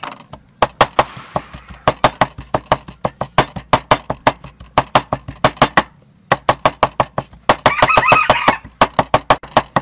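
A large kitchen knife chopping raw shrimp on a wooden chopping block: rapid, even strokes at about five a second, with a short pause near six seconds. A bird calls briefly about eight seconds in.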